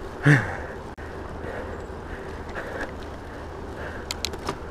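Wind rumbling on an unshielded GoPro microphone, with tyre noise from an electric bike riding on asphalt. A short vocal sound comes just after the start, and a few sharp clicks come near the end.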